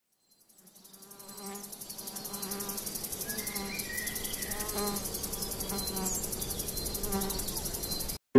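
Insects buzzing, with a fast high trill over a steady hum. It fades in over the first two seconds, holds steady, and cuts off suddenly just before the end.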